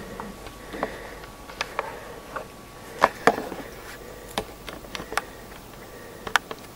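Irregular light knocks and clicks, about a dozen scattered through, over a faint steady hum.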